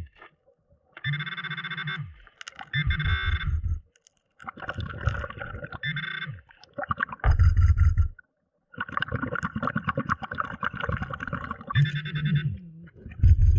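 A scuba diver's breathing heard underwater: whistling inhales through the regulator alternate with rumbling bursts of exhaled bubbles, every second or two.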